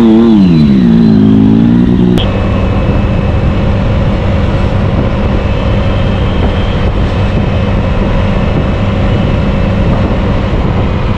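A motorcycle engine revs up and falls back in the first two seconds. After an abrupt cut, a Kawasaki Ninja 1000SX runs steadily at cruising speed, with road and wind rush, heard from the rider's seat.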